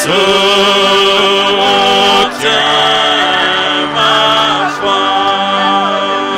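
Church worship music: singing in long held notes, dipping briefly twice, at about a third and three quarters of the way through.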